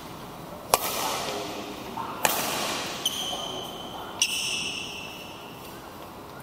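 Badminton racket strings striking a shuttlecock several times in a rally, sharp cracks that echo around a large hall, the loudest about a second in. Two high squeaks ring out during the later hits.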